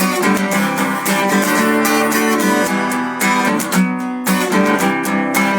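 Strummed guitar music playing chords, with no singing in this stretch of the song.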